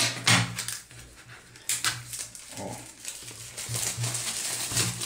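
Plastic shrink wrap being torn and pulled off a cardboard box, crackling and rustling in irregular bursts.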